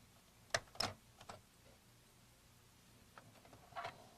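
A few faint clicks and taps as the Macintosh Portable's plastic display assembly is worked with a jeweler's screwdriver to release its side latches, with a brief scrape near the end.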